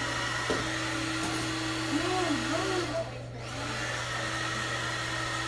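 Handheld hair dryer blowing steadily, its motor humming under the rush of air; the rushing sound briefly drops for about half a second around three seconds in.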